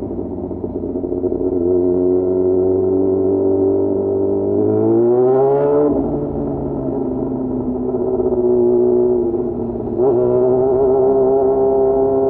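Yamaha FZ6's inline-four engine running under way. It revs up with a rising pitch about halfway through and then falls off sharply, as at a gear change or the throttle closing. Near the end it pulls hard again at a steady pitch.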